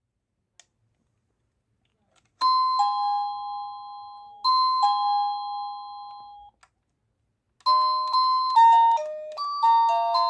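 Electronic doorbell chime playing a two-note ding-dong, high then lower, twice. About seven and a half seconds in, it starts a longer, quicker multi-note melody.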